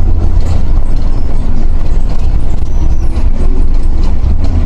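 MIRA intercity bus heard from inside the cabin while under way: a loud, steady low rumble of engine and road noise.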